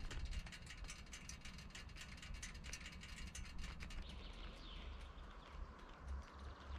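Footsteps crunching and crackling through dry leaf litter on a forest floor, with a few faint bird chirps from about four seconds in.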